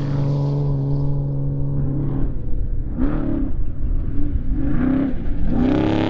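Off-road race truck engine running at a steady drone, then revving up and dropping back about four times in the second half as the truck comes on over rough dirt.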